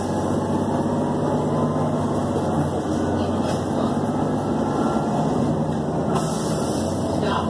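City bus driving, heard from inside the passenger cabin: steady engine and road noise with a constant low hum.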